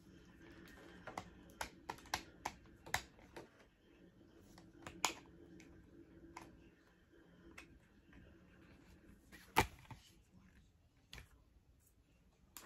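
Scattered light plastic clicks and taps at an irregular pace as parts of a gel ball blaster are handled and fitted, with one louder click about nine and a half seconds in.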